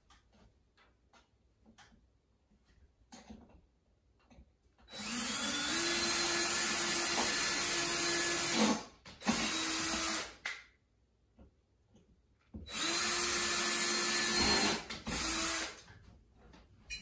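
Cordless drill running at a blind bracket on the window trim in two runs of a few seconds each, each followed by a short blip. Its whine climbs in pitch as the motor spins up at the start of each run. A few light clicks of handling come before the first run.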